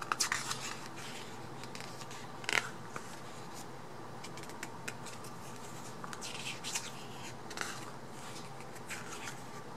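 Pages of a glossy album photobook being turned by hand: several short paper rustles and swishes, spaced a second or more apart.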